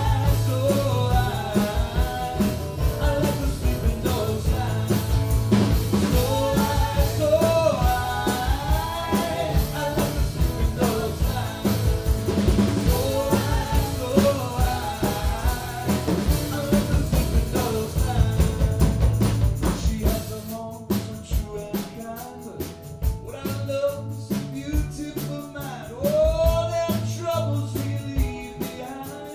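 Live band playing a song: sung vocals over strummed acoustic guitars, bass and drums. A little after two-thirds of the way in, the band drops back to a quieter passage of voice and guitar.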